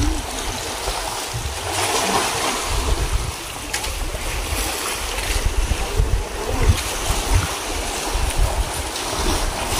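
Wind buffeting the microphone in gusts over the wash of sea water.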